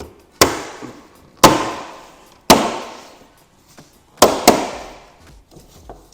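Sharp snaps of plastic trim clips letting go as the Defender's wing-top panel is pried up: five cracks, three about a second apart, then two close together near the end, each dying away with a short echo.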